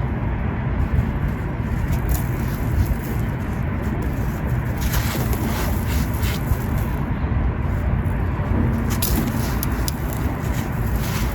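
Red gritty sand-cement lumps being crunched and crumbled, with a few sharp crackling crunches over a steady low rumble.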